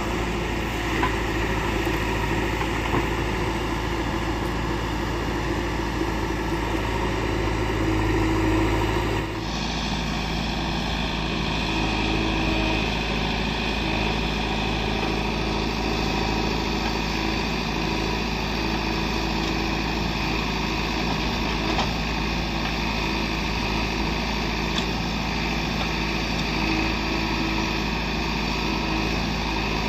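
Diesel engine of heavy earth-moving machinery running steadily. The engine note changes abruptly about nine seconds in.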